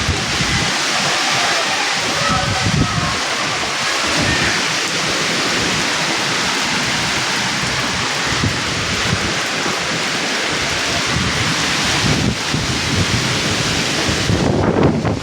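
Heavy rain pouring down in a steady, dense rush, with strong wind gusting and buffeting the microphone in low rumbles.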